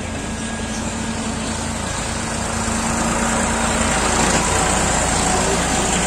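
Diesel engines of a wheeled excavator and farm tractors running steadily, growing louder about three seconds in.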